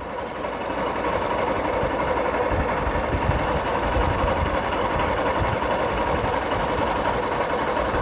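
Motorcycle engine running at road speed with wind rushing over the microphone, growing louder over the first second and then holding steady.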